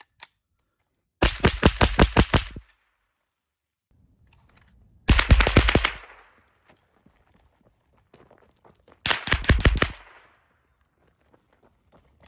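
Suppressed KP9 9mm firing three fast strings of shots, each about seven to ten rounds, with pauses of a few seconds between strings. A light click comes just before the first string.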